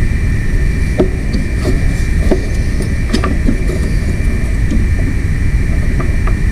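Metal engine parts clinking and knocking as they are handled, about a dozen short knocks spread unevenly, over a steady low rumble with a steady high whine from a running machine.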